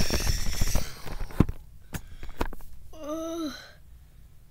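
A play-acted bomb explosion: a loud hissing rush that dies away in the first second, a few sharp knocks, then a short voiced groan about three seconds in.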